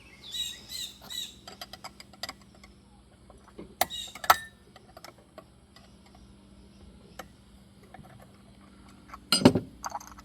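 Metal tools and chainsaw parts clicking and clanking during removal of the clutch from a G466-class chainsaw: a short run of ringing clicks at the start, scattered small ticks, two louder knocks about four seconds in and a loud clank near the end.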